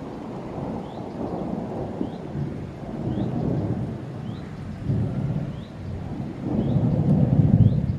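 Rolling thunder: a low rumble that swells and ebbs in waves, building to its loudest near the end before it starts to fade.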